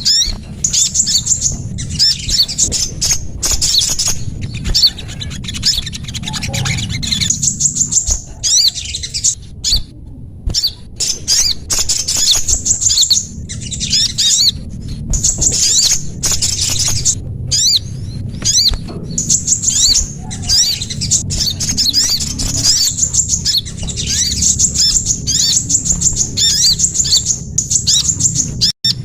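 Bird-lure recording of small songbirds' rapid, very high chirps and trills, coming in bursts with short pauses between them, over a steady low rumble.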